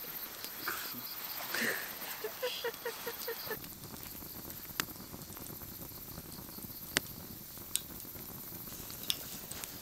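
Wood fire crackling, with a sharp pop every second or two over a soft steady hiss.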